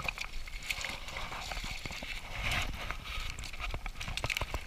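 A hooked trout splashing at the water's surface as it is drawn in close, with irregular knocks and clicks from the rod and line being handled.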